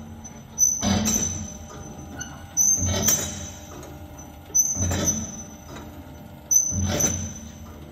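Meyn D50 poultry thigh and drum deboner running empty: a loud mechanical stroke about every two seconds as the carousel cycles, each one starting sharply and fading over about a second, with a quieter steady running sound between.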